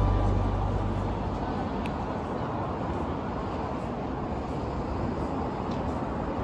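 Background music fades out within the first second, leaving steady ambient background noise with a low rumble.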